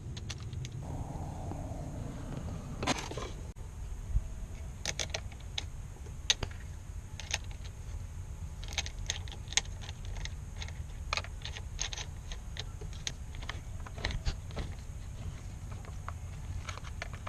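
Irregular light clicks and taps of small metal parts and hand tools being handled during the wiring work, over a steady low rumble.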